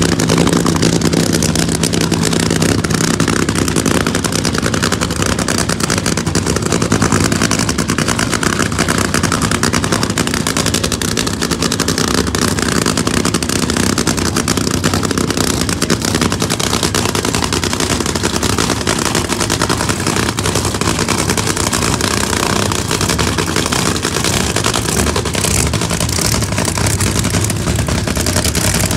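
Drag-racing funny car engines idling loudly and steadily, the exhaust a rapid rattle of pops.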